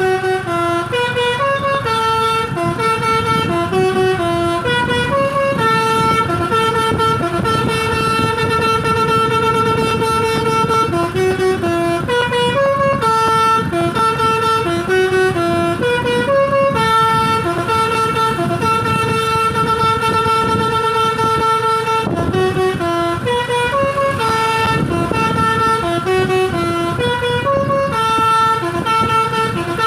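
Basuri V3 'telolet' musical horn on a Hino 500 truck playing a continuous melody of short and held notes, with the truck's engine rumbling underneath.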